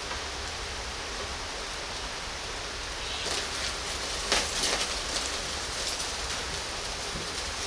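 Pork belly sizzling on a grill grate over charcoal, with crackling that picks up about three seconds in and a sharp pop a second later.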